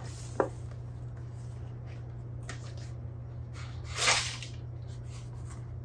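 Cardboard gift box with a ribbon being untied and opened: a small click near the start, faint rustles, and a brief sliding swish of the box about four seconds in, over a low steady hum.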